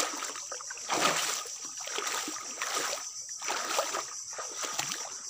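Footsteps squelching and splashing through shallow water and soft mud on a creek bed, a step roughly every second or less.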